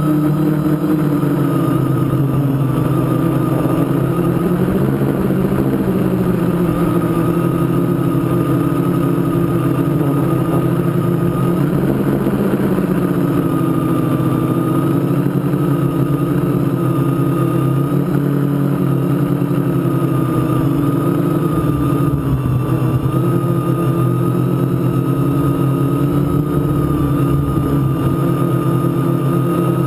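Mini quadcopter's electric motors and propellers buzzing, heard from a camera mounted on the craft. The pitch wavers up and down as the throttle changes.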